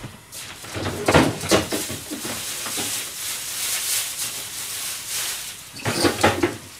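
Kitchen clatter: a few knocks and rattles about a second in and again near the end, like a cupboard or door being handled and pots knocking, over a steady hiss.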